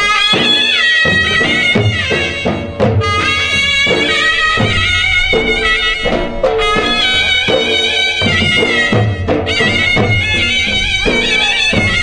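Charni ras folk music played loud: a high, reedy wind-instrument melody with bending ornaments over steady drum beats, pausing briefly between phrases.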